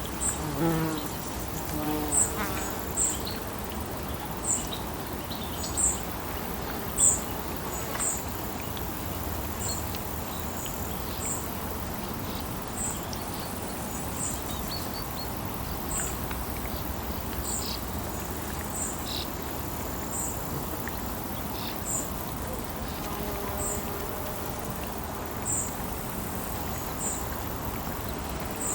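Lakeside ambience: a steady wash of water with a high, short chirp repeating every second or so. A few lower calls come in the first few seconds.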